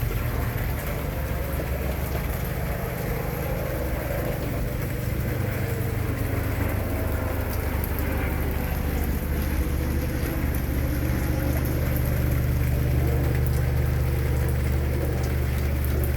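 Steady rain falling, an even hiss with scattered faint drop ticks, over a steady low rumble.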